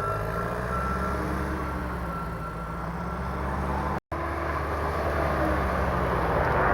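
Bulldozer's diesel engine running steadily, getting louder toward the end. The sound cuts out for an instant about four seconds in.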